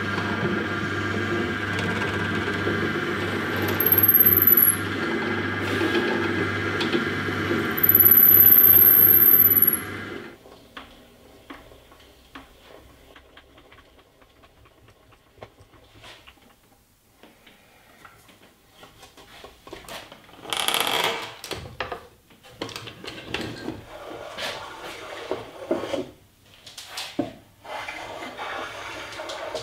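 A loud steady drone with two brief high squeals, which cuts off suddenly about ten seconds in. Then quieter hand-tool work on oak: a hand-cranked drill boring into the wood, with scraping, clicks and a few knocks.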